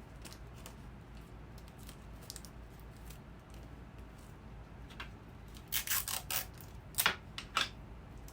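Items in a gift basket being pulled and shifted by hand, making a few faint clicks and then several short, sharp crinkling rustles in two clusters in the second half.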